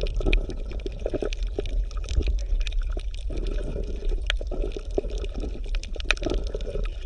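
Bubbling, gurgling water with irregular pops over a deep, steady rumble: an underwater ambience.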